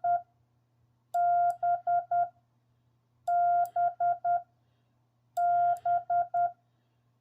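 Morse code letter B (dah-dit-dit-dit) sent repeatedly on a Bencher iambic paddle, heard as the CW sidetone beep of a Yaesu FTDX10 transceiver: one long beep then three short ones, the tail of one letter and then three more, with a short pause between letters.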